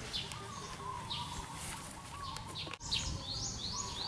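Wild birds chirping and calling in a mangrove forest: many short, high chirps, with a quick run of three or four rising notes near the end. The sound breaks off briefly about three seconds in.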